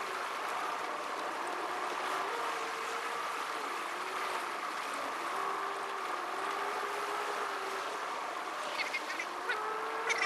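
Inside a moving car: steady road noise and a wavering engine note, played at four times speed so the engine sounds high-pitched. A few short clicks and a rising note come near the end.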